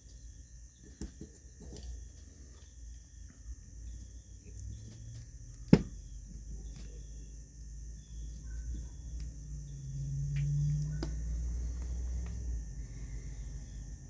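Small metal clicks and taps of locking pliers and a pick worked on a small-engine carburetor, trying to free its stuck needle valve, with one sharp click about six seconds in. A steady high-pitched whine runs underneath, and a low rumble swells around ten seconds in.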